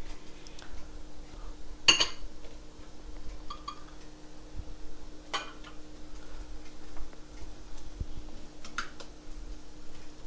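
Glass dishes and cookware clinking and knocking on a countertop as they are handled: a few separate clinks, the loudest about two seconds in, over a steady low hum.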